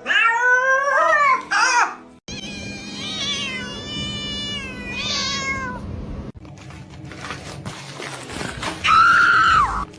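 Domestic cat meowing several times. The loudest is a long meow near the end that falls in pitch at its close.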